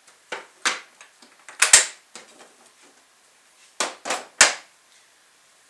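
Hard plastic Systainer tool case being closed and handled: a series of sharp clacks and knocks. The loudest comes just under two seconds in, with a low thud, and a quick cluster of three follows around four seconds in.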